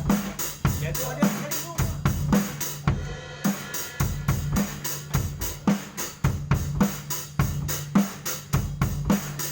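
Drum kit playing a steady beat: heavier kick and snare hits a little under twice a second under quick hi-hat strokes, with a steady low note held underneath. The cymbal strokes drop out briefly about three seconds in.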